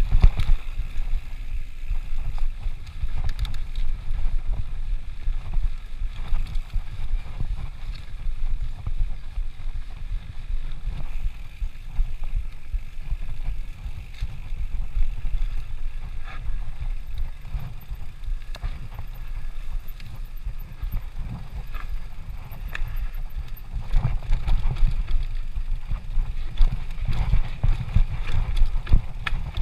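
Mountain bike descending a dirt singletrack: a steady low rush of wind and tyre noise on the riding camera's microphone, broken by frequent short rattles and knocks as the bike goes over bumps.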